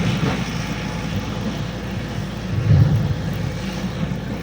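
Excavator diesel engine running steadily, with a louder low rumble at the start and again about three seconds in.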